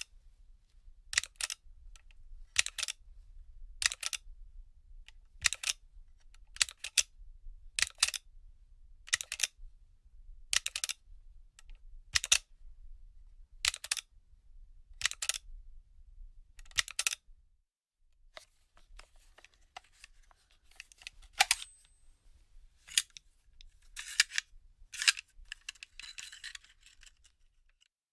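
Pages of a paper magazine being turned one at a time, a short papery swish about every second and a half. In the last ten seconds this gives way to looser rustling and crinkling of the pages.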